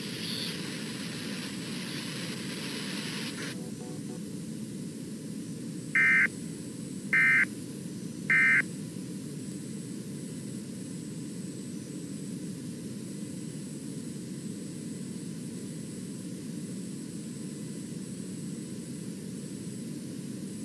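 Three short warbling data bursts about a second apart, the loudest sounds here, over steady radio hiss: the SAME end-of-message code that closes a NOAA Weather Radio alert. A brighter layer of hiss cuts off about three and a half seconds in.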